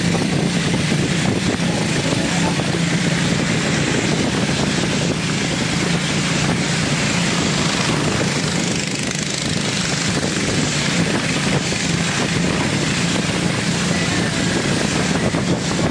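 A small river boat's engine running steadily with a constant low hum, over the rush of water along the hull.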